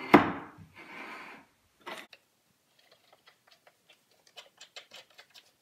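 A plywood board knocks down onto a CNC router's wooden slotted table and scrapes as it is slid into place. About three seconds in, a run of small, irregular metal clicks follows as the wing nuts of the hold-down strips are turned on their bolts.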